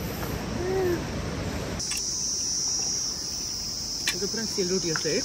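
A steady high insect chirring starts suddenly about two seconds in and holds without a break, with quiet voices near the end. Before it there is a rough noise of wind on the microphone.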